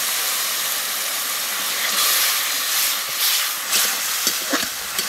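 Water poured into a hot wok of frying onion, tomato and spice paste, hissing and sizzling steadily as it hits the hot oil and boils off.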